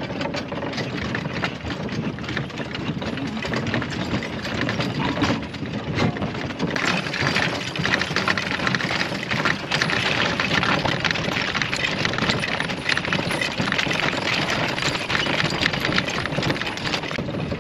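Horse-drawn wagon rolling over dry, rough ground: its spoked wheels and frame rattling and clattering steadily with many small knocks and clinks, growing louder about seven seconds in.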